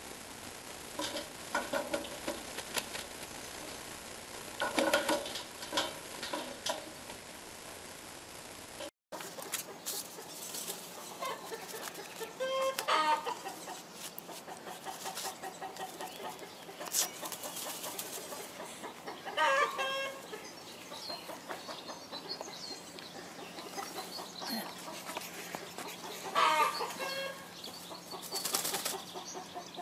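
Light scattered taps for the first several seconds, then a bird calling in short series of harsh repeated notes three times, roughly seven seconds apart.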